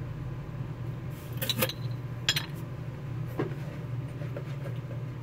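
A few light clicks and clinks of small pin-back buttons being handled and set down, spread over a few seconds, over a steady low background hum.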